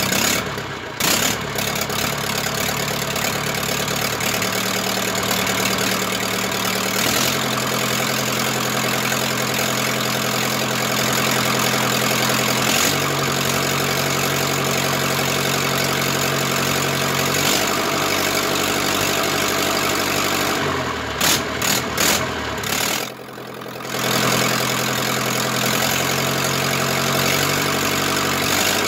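Zetor Crystal 8011 tractor's freshly rebuilt diesel engine running on its first start. It holds steady idle and fast-idle speeds, with its speed stepping up and down several times. About 21 seconds in the sound breaks up for a couple of seconds and briefly drops before steady running resumes.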